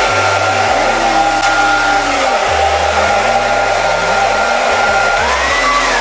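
Handheld hair dryer running on its hot setting, blowing into the hose of a soft bonnet hood dryer attachment: a loud, steady rush of air with a motor whine, which rises in pitch near the end.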